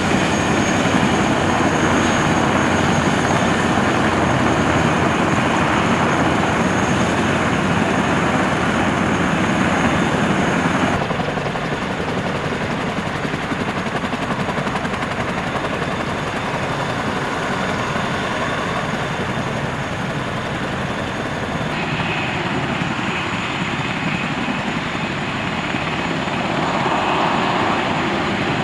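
CH-47 Chinook tandem-rotor helicopter running, a steady loud rotor and turbine noise. It drops abruptly about eleven seconds in and shifts again about twenty-two seconds in.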